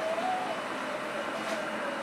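Steady sizzling hiss from a pan of peppers and onions cooking in vegetable broth on the stove, with a thin tone that wavers slowly in pitch underneath.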